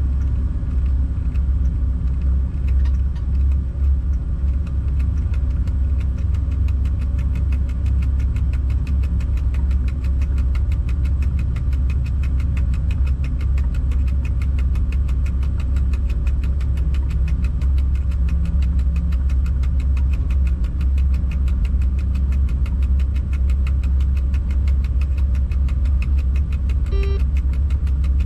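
Locomotive cab noise: a steady low rumble with a fast, even ticking above it. A short faint beep sounds near the end.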